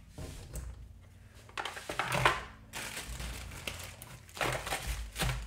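Packaging being handled: irregular crinkling and rustling of plastic and cardboard in several short bursts.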